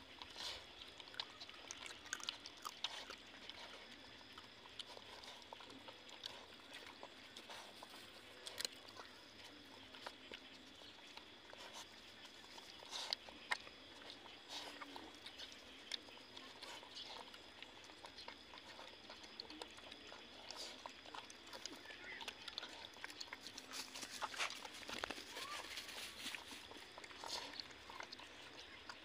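Two puppies eating from a plastic bowl: faint, irregular chewing and smacking, with small clicks of muzzles and teeth against the bowl.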